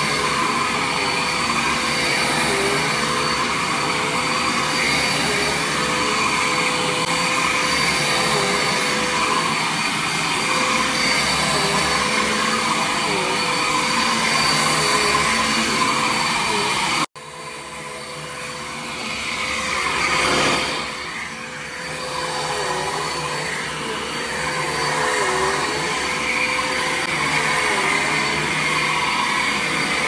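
Corded upright vacuum cleaner running on carpet: a steady motor whine over a rush of air, its tone wavering slightly with each push and pull. About halfway through the sound cuts out for an instant, then comes back quieter and builds up again over a few seconds.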